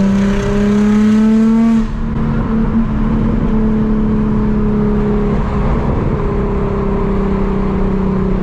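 Nissan 350Z's 3.5-litre V6 heard from inside the cabin through a Tomei Y-pipe and Invidia 60 mm test pipes, which take the catalytic converters out of the exhaust. The engine pulls with a slowly rising pitch, eases off just under two seconds in, then drones steadily at cruise.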